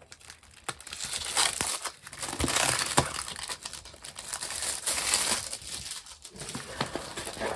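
Plastic packaging crinkling and rustling as hands open a diamond painting kit, with an uneven run of small crackles and crumples.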